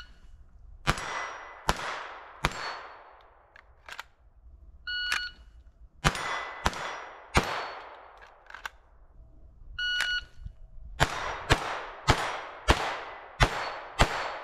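Three strings of gunshots at steel targets, each string of about five quick shots starting a second after a short electronic shot-timer beep. Each shot has a long fading echo, and the steel plates ring thinly after hits.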